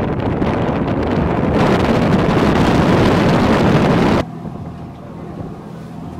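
Wind buffeting the microphone on a moving tour boat, loud and rushing, until it cuts off suddenly about four seconds in. After that, the boat's engine runs with a steady low drone.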